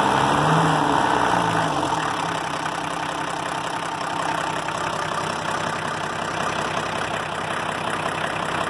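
Volvo F408's TD40 diesel engine idling steadily after a leaking, cracked injector washer was replaced. It is a little louder for the first two seconds, then settles to an even run.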